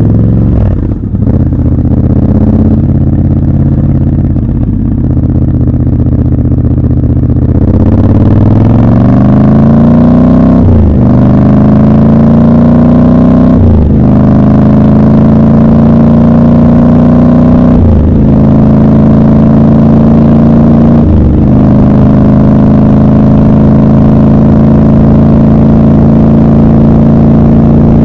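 Triumph Scrambler 1200 XC's 1200 cc parallel-twin engine, heard raw from the rider's seat: running at low revs for the first several seconds, then accelerating through four upshifts, each a brief break where the pitch drops before climbing again. It settles to a steady cruise after the last shift.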